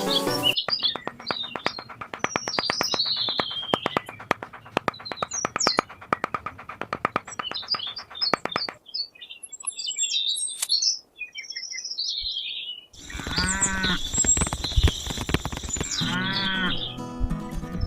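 Birds chirping over a fast run of clicks for the first half, then chirps alone for a few seconds; about thirteen seconds in, loud livestock calls with music take over.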